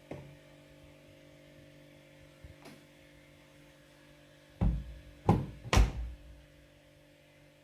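Midea front-loading washing machine: a steady low hum with a click, then three heavy thuds in quick succession about two-thirds of the way through.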